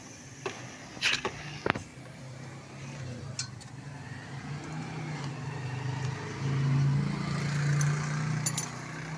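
A few sharp metal clinks of a wrench on the motorcycle's rear axle and brake adjuster in the first two seconds, then a motor vehicle engine running, growing louder toward the end.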